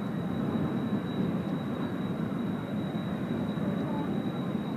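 Distant jet noise from Blue Impulse Kawasaki T-4 trainers flying over the base: a steady rushing, with a thin, steady high whine above it.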